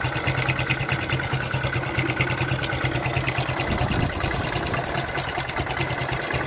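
Motorcycle engine running steadily with even, rapid firing. The petrol supply is cut off, and the builder says it is running only on hydrogen (brown gas) from a water electrolyser bottle fed into the carburettor.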